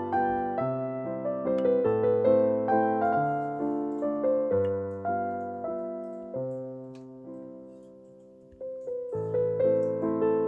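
Background piano music: a gentle run of single struck notes that grows quieter and sparser about two-thirds through, then picks up again near the end.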